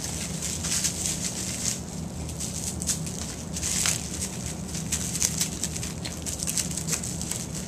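Thin plastic wrapping crinkling and crackling in quick, irregular clicks as it is handled and cut away from a camera.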